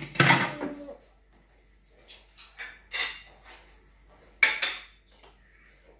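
Kitchen dishes and utensils clattering: a loud clatter at the start, then a few separate sharp clinks, with a strong pair about three-quarters of the way through.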